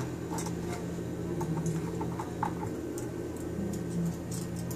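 Small irregular clicks and taps of metal lock hardware being fitted onto a door, over a steady low hum.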